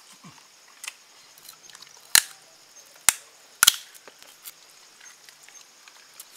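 Cooked mutton marrow bones being broken apart by hand: sharp cracks and snaps, three loud ones between about two and four seconds in, with lighter clicks around them.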